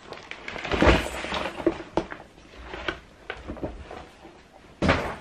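Cardboard toy box and packaging being handled and moved: irregular rustles and knocks, with louder thumps about a second in and again near the end.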